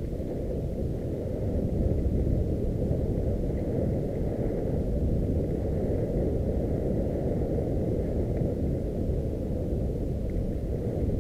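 Wind and tyre-on-dirt rumble on the microphone of a camera riding a mountain bike down a forest trail: a steady low rumble with no sharp knocks.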